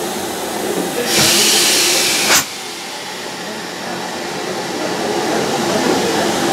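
Compressed air from a railroad car's air brake line hissing out in a loud burst for just over a second, cutting off with a sharp pop, against a steady low rumble of the train.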